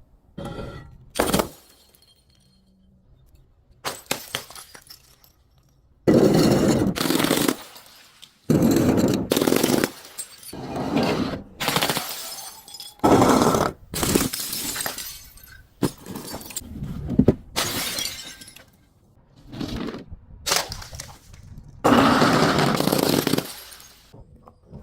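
Glass bottles being smashed and crushed: a long run of separate crashes and crunches, one after another, each with shattering and tinkling glass.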